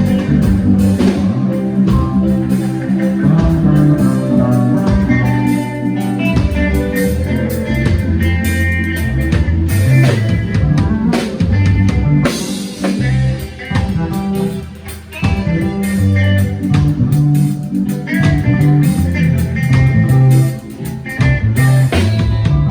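A band plays instrumental music on guitar, bass and drum kit, loud throughout, with two brief drops in level in the second half.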